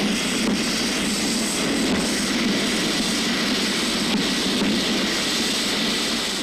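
Waste gunpowder and firework material going up in a controlled disposal burn, a loud, steady rushing roar with no single sharp bang.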